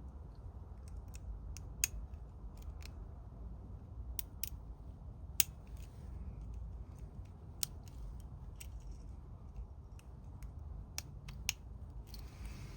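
Lock pick working the pin stack inside an ABUS 83/45 padlock core: scattered sharp metallic clicks at irregular intervals as the pins are lifted and set, over a steady low background hum.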